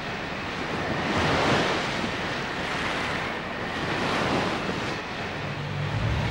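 Sea surf: waves washing and breaking as a steady rush that swells twice. Low music notes come in near the end.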